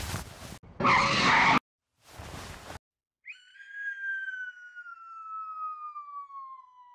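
Cartoon sound effects: a few rushing whooshes in the first three seconds, the loudest about a second in, then a long descending whistle, the classic falling-down effect, sliding slowly lower in pitch for about four seconds before cutting off.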